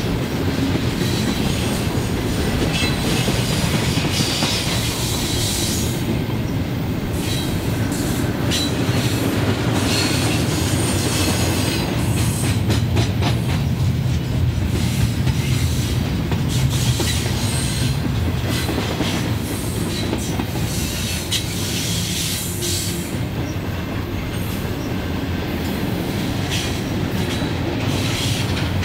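A train rolling past on the track for the whole stretch: a steady rumble of wheels on rail, with irregular clicking from the rail joints and brief high squeaks from the wheels now and then.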